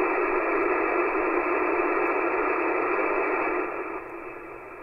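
Shortwave band noise from a KiwiSDR web receiver: a steady hiss squeezed into a narrow voice-width passband, with no station coming through. It drops sharply in volume a little under four seconds in as the receiver's volume is turned down.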